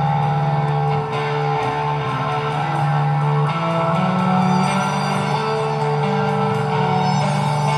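Rock band playing an instrumental passage of a space-rock song: electric guitar over a steady low bass note that shifts pitch about a second in and again about four seconds in.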